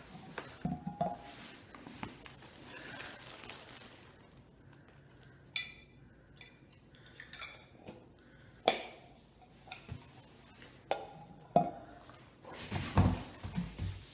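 Small round metal scent tins clinking as they are handled and set down, several sharp clinks with a short metallic ring, the strongest about three seconds apart. Soft low thumps and shuffling near the end.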